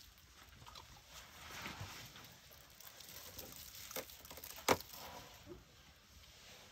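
African elephants shuffling and rustling in sand and brush, faint throughout, with a small click and then a sharp snap a little past the middle.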